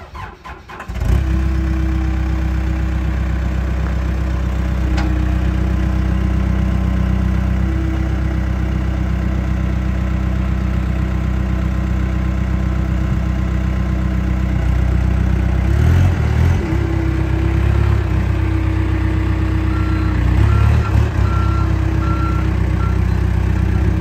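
New Holland B110B loader backhoe's diesel engine cranking and catching about a second in, then idling steadily. The engine note wavers briefly twice in the second half.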